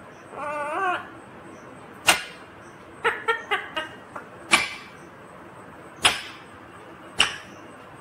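Rose-ringed parakeet giving a short wavering call near the start, then a scattered series of sharp clicks and taps as it works a plastic pen with its beak, several of them bunched together about three seconds in.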